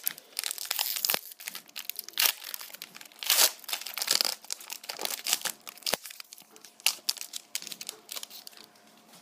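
Hockey card pack wrapper being torn open and crinkled by hand: a fast, irregular run of crackles that dies away near the end.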